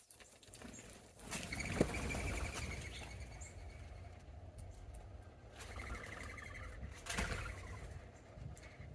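Small birds calling at a feeding spot, with a high trilled call starting about a second in and further trills past the middle, over a low steady rumble.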